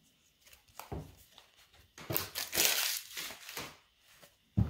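Foil wrapper of a Pokémon booster pack crinkling and tearing open by hand, loudest from about two to three and a half seconds in, then a single short thump near the end.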